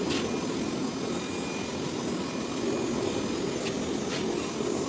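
Handheld electric heat gun running steadily with an even fan whir as it blows hot air into the open end of a PVC pipe.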